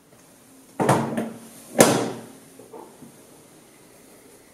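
Someone rummaging in a cupboard: two short knocking, rustling noises about a second apart, the second one louder, then a fainter knock.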